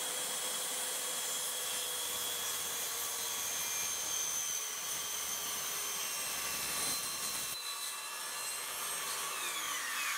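DeWalt corded circular saw running and cutting through a wooden board, with a steady motor whine over the cutting noise. Near the end the motor winds down, its whine falling in pitch as the trigger is released.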